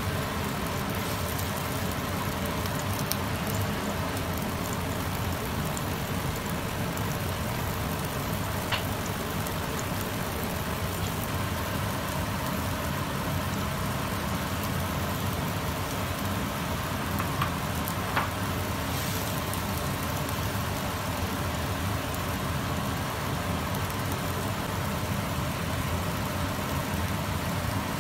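Cola-and-soy braising liquid boiling hard around pork ribs in a wok, a steady bubbling hiss over a low steady rumble. A few faint clicks come through, two of them close together about two-thirds of the way in.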